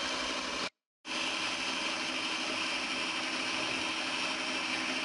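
Electric stand mixer running steadily, its beaters whipping egg whites toward stiff peaks: an even motor whir with a whirring hiss, which cuts out for a moment about a second in and then resumes unchanged.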